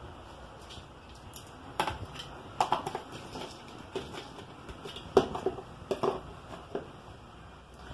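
Small plastic spice containers and their clear snap-on lids being handled on a countertop: scattered light clicks and taps, a dozen or so, the loudest about five seconds in.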